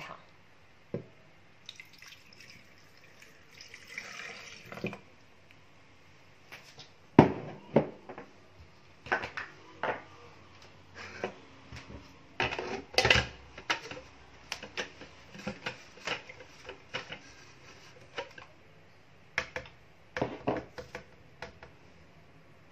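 A short splash of liquid being poured, then a string of plastic knocks and clicks as a plastic blender jar and its lid are handled and fitted onto the blender base. The motor does not run.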